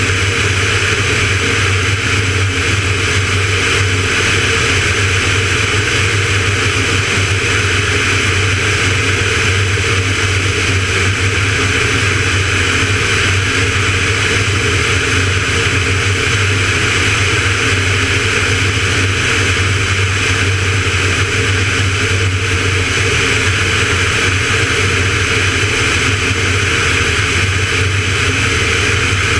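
Van's RV-9A light aircraft's piston engine and propeller droning steadily in cruise flight, mixed with steady airflow noise.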